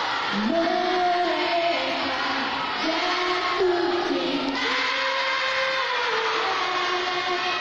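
A woman singing a slow melody of long held notes into a microphone over backing music.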